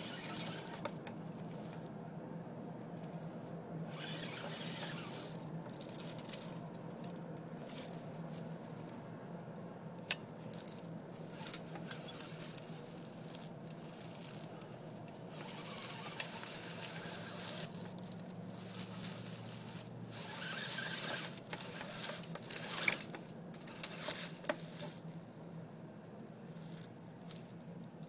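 Axial SCX10 radio-controlled crawler creeping up a slope of dry leaves: its tyres rustle and crunch through the leaf litter in spurts, busiest about three-quarters of the way through, over a low steady hum.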